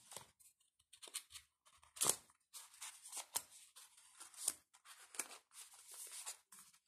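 Hands handling a thin cardboard paper sleeve: irregular rustling, sliding and small scrapes and taps of paper, with a sharper snap about two seconds in.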